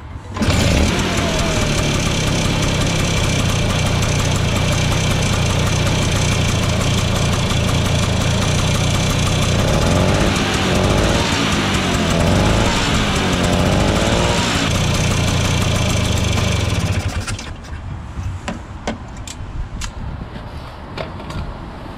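Vespa P200E's single-cylinder two-stroke engine starting up about half a second in and running steadily on the choke while cold, its note wavering up and down near the middle, then cutting off suddenly. It is being run to check the ignition timing, which is almost spot on.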